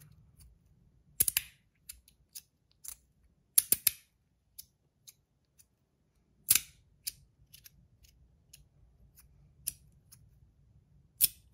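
Brass magnetic stack slider fidget being slid and snapped into place, giving sharp metallic clicks at irregular intervals, a dozen or so, some in quick pairs.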